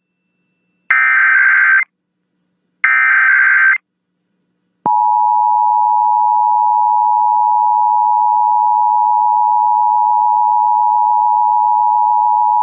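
Emergency Alert System SAME header: two one-second bursts of screechy digital data tones about a second apart. About a second later the EAS attention signal comes on, a steady two-tone alarm at 853 and 960 Hz, and holds. Together they open a Required Weekly Test alert.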